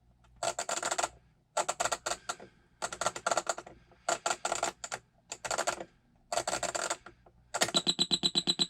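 Flip-number cards of a 1970s Panasonic RC-6234 flip clock radio clicking over in rapid runs as the time-setting knob is turned, six short bursts with brief pauses between. Near the end the clock's alarm goes off with a continuous buzzing pulse, the sign that the set alarm time has been reached.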